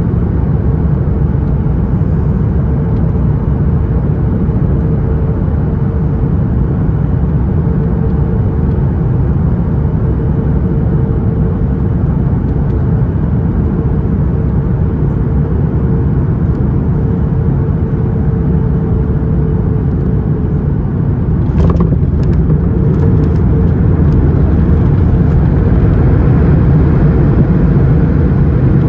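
Cabin noise of a Boeing 737 MAX 8 on final approach: a steady rumble of engines and airflow with a steady hum. The hum fades out shortly before the wheels touch down about 21 seconds in with a few knocks and thumps, and the noise then grows louder as the jet decelerates on the runway.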